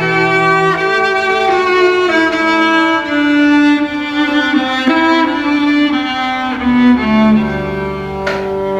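A string ensemble of violins with cello playing a slow melody in held, bowed notes, with a lower part moving underneath.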